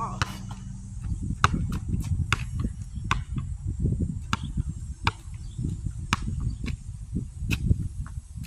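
A basketball bouncing on an outdoor asphalt court, a sharp smack roughly once a second, over a low irregular rumble.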